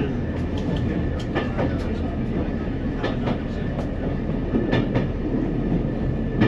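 NER Autocar railcar running along the line, heard from the driver's cab: a steady low rumble from the running gear and drive, with irregular sharp clicks and knocks from the wheels on the track.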